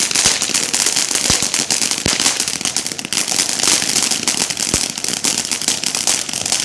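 Ground firework fountain burning, a steady hiss thick with rapid crackling, and a few sharper pops standing out.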